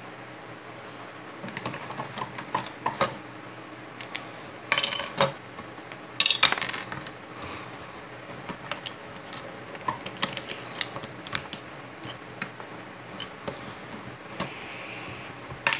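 Plastic Lego bricks clicking and rattling as they are handled and pressed together, with two louder bursts of clattering about five and six and a half seconds in.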